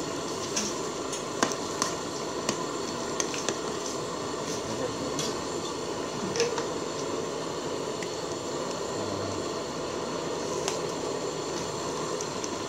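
Thick pineapple catfish curry bubbling in an aluminium pot on a gas burner, a steady simmering hiss. A few sharp clicks in the first few seconds come from the metal ladle stirring against the pot.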